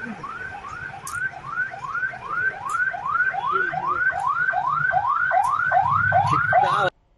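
An electronic siren whooping in quick rising-and-falling sweeps, about three a second, getting louder and then cut off abruptly near the end.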